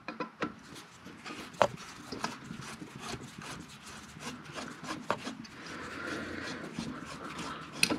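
A long screwdriver scraping and prying at the rear of a 136-amp alternator's cast aluminium case, working the voltage regulator loose. Light metal-on-metal rubbing with a few sharper clicks and taps.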